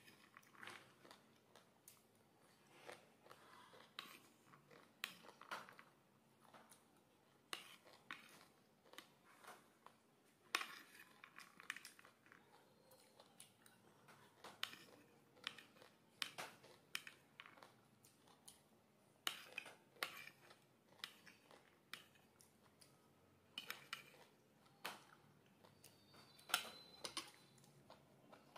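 Close-miked eating: chewing and crunching of pomegranate seeds, with sharp clicks of a spoon against the plate, coming irregularly every second or so.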